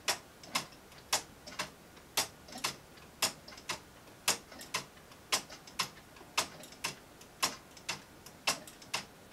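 3D-printed plastic pendulum clock escapements ticking: sharp clicks in an uneven tick-tock, pairs about half a second apart repeating roughly once a second, with fainter clicks in between.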